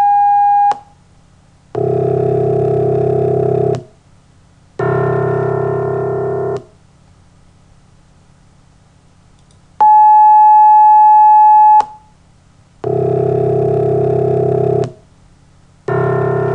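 Computer playback of a sound-synthesis test: a steady, pure high tone of about two seconds, followed by two low piano-like tones of about two seconds each. The low tones are a sum of pure tones built from the sampled partials of a piano's C1 note, and the recorded C1 note itself. The sequence plays twice, the second time starting about ten seconds in.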